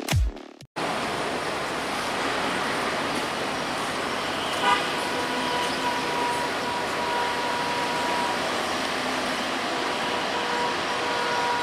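Electronic music ends within the first second, then steady outdoor traffic-and-rail noise. Over it a horn sounds: a short blip a little before halfway, a held note for about two and a half seconds, and another held note near the end.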